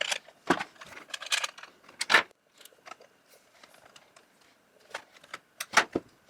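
Irregular sharp clicks, clacks and knocks of parts being handled and fitted on a Stihl MS660 chainsaw under assembly, loudest about two seconds in and again near the end.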